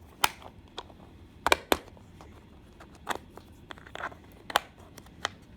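Metal drill and driver bits clicking and clattering against the plastic holders of a bit-set case as they are handled: about seven sharp clicks, the loudest two close together about a second and a half in.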